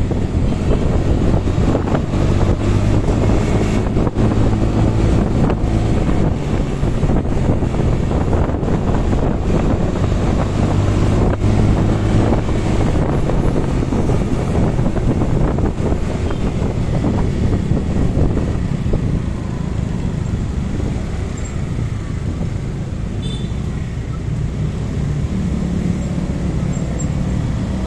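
Motorcycle engine running while riding in city traffic, with wind buffeting the microphone and surrounding road noise. The sound eases about two-thirds of the way through as the bike slows in heavier traffic.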